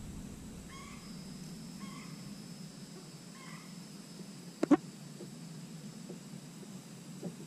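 Three short animal calls about a second apart over a faint steady high whine, with one sharp knock just past the middle.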